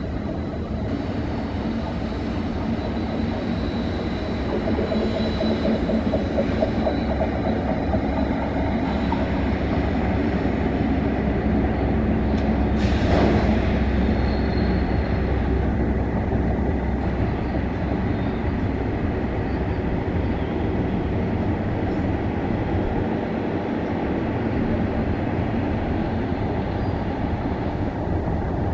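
Cement freight train running on the ghat line: a steady rumble of wagons and wheels on the track. A thin high whine carries over the first several seconds, and there is a brief louder rush about thirteen seconds in.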